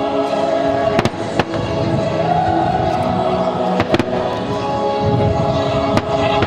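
Fireworks shells bursting in sharp bangs, about five of them, two pairs close together, over recorded music with long held tones.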